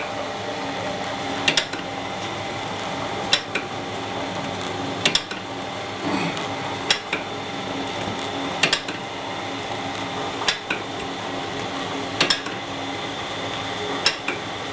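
Screw conveyor (auger) turning in its trough and carrying wood chips toward the boiler: a steady mechanical running noise with a sharp metallic knock repeating about every second and three-quarters.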